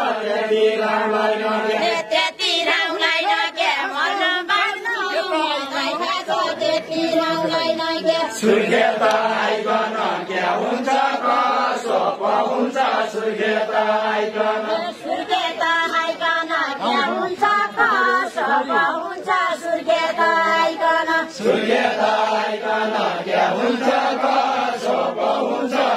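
A group of voices singing a Deuda, the Far-Western Nepali folk song of the linked-arm circle dance, in a chanting style. The melody is held and rises and falls continuously.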